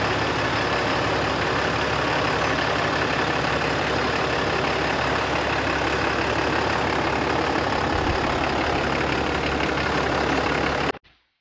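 Ram 3500's 6.7-litre Cummins turbo-diesel engine running steadily, then cutting off suddenly near the end.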